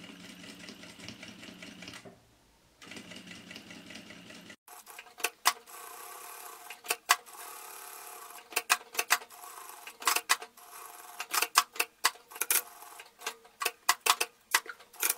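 Electric sewing machine stitching through layered quilted fabric along a pattern line, running in spurts with a short pause about two seconds in. In the later part the motor runs more faintly, broken by many sharp irregular clicks.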